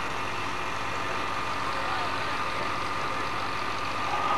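A steady low hum with hiss over it, even throughout and without any voice.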